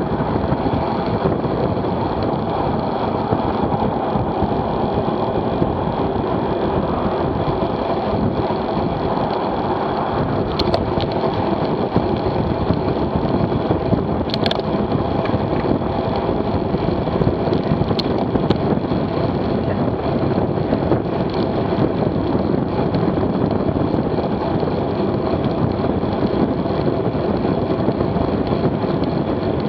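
Steady rush of wind and tyre noise on a bike-mounted camera's microphone as a road bike rides at about 27 mph, with a few brief sharp clicks near the middle.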